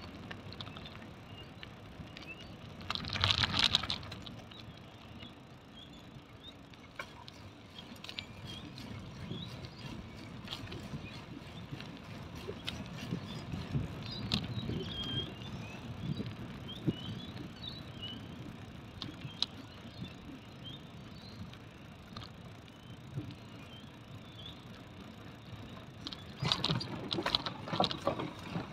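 Bicycle riding along an asphalt path: a steady rumble of tyres and the ride, with small bird chirps in the middle stretch. A loud rattle about three seconds in, and a longer clatter near the end as the wheels cross the timber boardwalk planks.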